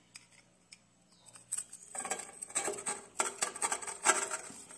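A thin metal tool tapping against a quartz crystal, a quick irregular run of light clicks that starts about two seconds in: small blows to loosen the quartz around a green tourmaline crystal inside it.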